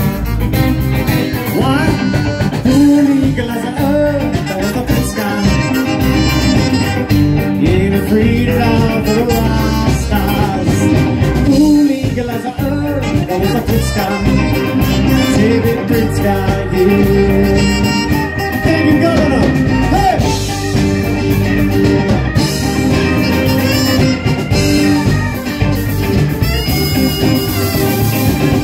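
Live amplified band playing a song: electric guitars, bass, acoustic guitar and keyboard, with melodic lead lines sliding over a steady groove.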